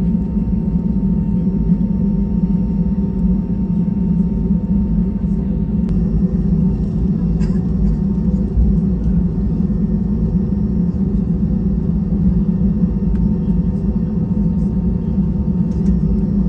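Steady low cabin rumble inside an Airbus A320 taxiing after landing, its engines at idle, with a few faint steady hums above it.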